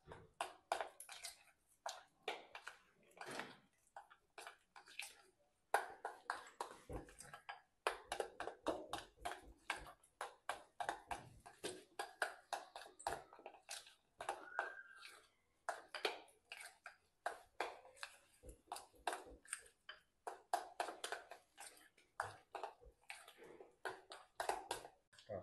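Spoon beating gram-flour batter in a bowl: faint, quick, irregular clicks of the spoon against the bowl, several a second.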